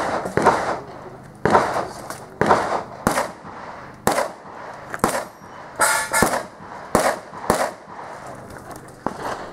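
Handgun shots fired during an IPSC stage: about fifteen sharp reports, mostly in quick pairs (double taps) about half a second apart, with short gaps as the shooter moves between targets.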